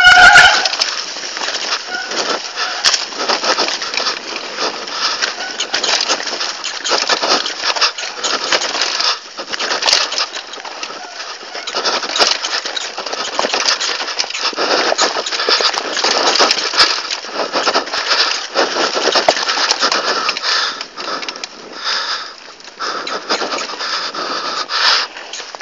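Crunching, rattling rolling noise of a fast ride down a rough dirt trail: tyres running over dirt, leaves and stones, with clatter from the jolts, the loudness rising and falling with the bumps.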